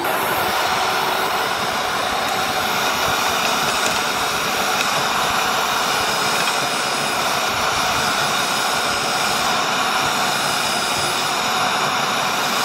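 NAC 1500 W electric tiller running steadily: a constant electric-motor whine over the noise of its rotating tines churning through loose garden soil.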